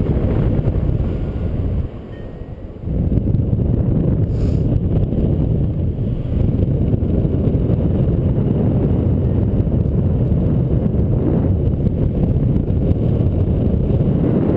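Wind rushing over the microphone of a harness-mounted camera on a paraglider in flight, a steady low rumble that dips briefly about two seconds in.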